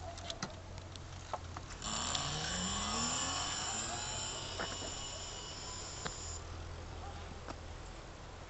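Electric hub motor of a small e-bike pulling away: a whine rising in pitch starting about two seconds in, with steady high-pitched tones above it that cut off about four seconds later. A few light clicks.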